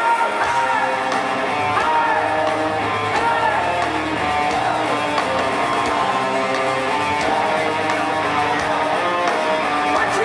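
Live rock band playing through a concert PA, with electric guitar and a man singing.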